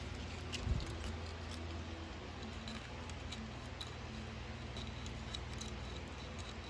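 Faint light metallic ticks and clicks from a feeler gauge being handled and slid between the valve gear while checking valve clearance, over a steady low hum. A soft knock comes a little under a second in.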